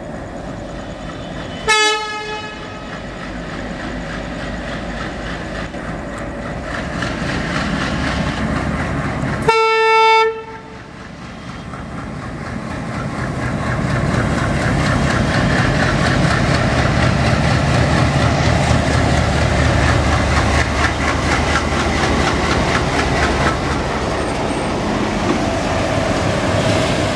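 WDM3D diesel-electric locomotive sounding its horn twice, a short blast about two seconds in and a longer one about ten seconds in, as it pulls a passenger train out. Its engine then gets louder as it draws past, with the wheels clicking over the rail joints.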